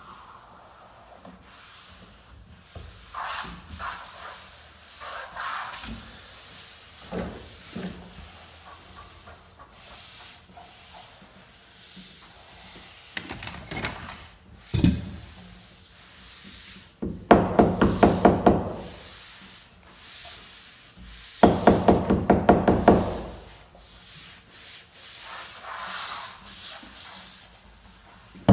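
Hand roller and hands rubbing and pressing a laminate sheet down onto a door. Partway through there are two louder passes of rapid, evenly spaced rattling, each a second or two long.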